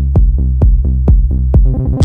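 Minimal techno: a four-on-the-floor kick drum about twice a second over a steady bass line, with the hi-hats and high sounds dropped out. Near the end the beat briefly cuts out.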